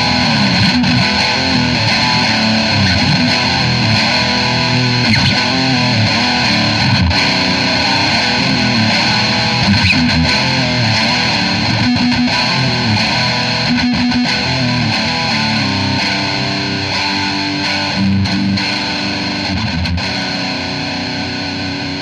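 Electric guitar played with distortion through a small practice amp, likely a Marshall MG10CD, picked up by microphones on the amp's grille. The playing is continuous.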